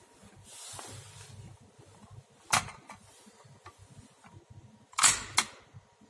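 Sharp plastic clicks: a single click about two and a half seconds in, then two louder clicks about half a second apart near the end as the button of a red manual fire alarm call point is pressed in. No alarm or siren sounds yet.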